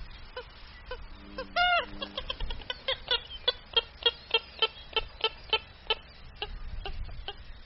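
Purple gallinule calling: a run of short clucking notes that quicken to about four a second through the middle and then slow again, with one longer, drawn-out note a couple of seconds in.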